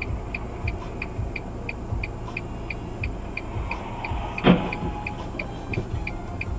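Collision between two cars a short way ahead: a single sharp crash about four and a half seconds in as a red crossover strikes the front side of a turning SUV. Under it, the dashcam car's idling engine rumbles steadily and its turn-signal indicator ticks about three times a second.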